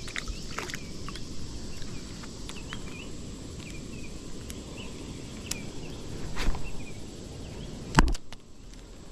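Open-air river ambience: a steady low rumble with faint, short bird chirps and a few light clicks. About eight seconds in, a sharp knock as the spinning reel is handled right against the microphone.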